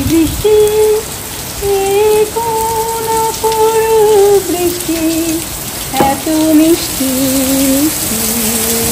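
A woman singing a slow melody unaccompanied, in long held notes that step from pitch to pitch, over steady heavy rain.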